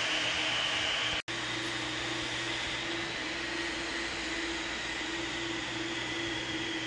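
Steady mechanical hum and whir of machinery, with a low steady tone and a hiss. It cuts out for an instant a little over a second in, then resumes with a slightly different pitch.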